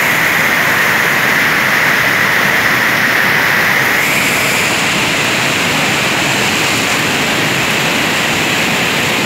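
Water pouring over a weir wall into churning white water below: a loud, steady rush.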